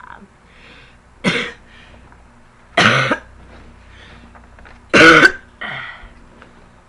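A girl coughing hard: three loud, short coughs about two seconds apart, the last followed by a weaker one, as she tries to cough up phlegm.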